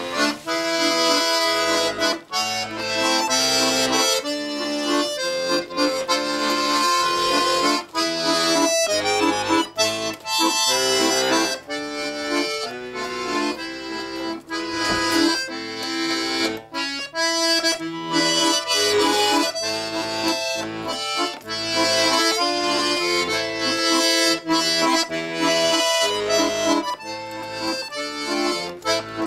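Bayan (Russian button accordion) playing a tune without pause: a melody of held reed notes over a regularly alternating bass and chords.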